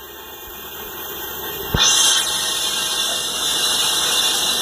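Capstan lathe running, a steady mechanical noise that builds slowly. A sharp knock comes a little under two seconds in, and after it the noise is louder with a high hiss.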